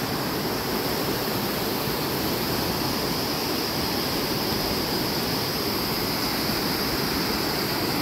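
Muddy floodwater rushing steadily through the breach of a washed-out highway, a continuous torrent of water.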